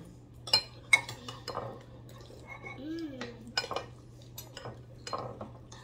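Spoons clinking and scraping against cereal bowls during eating: about ten sharp, irregular clinks, the loudest in the first second. A short hummed sound, rising and falling, comes about three seconds in.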